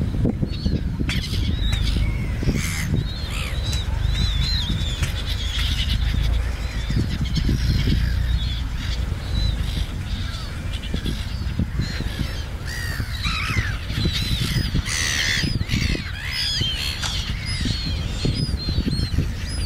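A flock of black-headed gulls calling, many short harsh arching cries overlapping throughout, over a steady low rumble.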